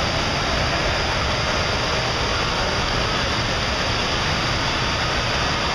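Steady, unbroken rush of churning water from a hot tub's jets, mixed with the running water of an indoor waterpark.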